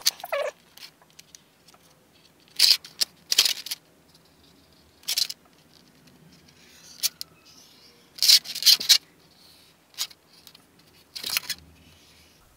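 Sharpie felt-tip marker drawing on a thin vacuum-formed plastic sheet: several short scratchy strokes a second or two apart, with the flexible sheet rustling as it is handled.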